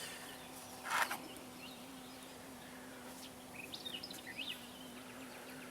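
Outdoor ambience: a songbird gives a few quick chirps about three and a half to four and a half seconds in, over a steady low hum. A brief rustle of handling comes about a second in.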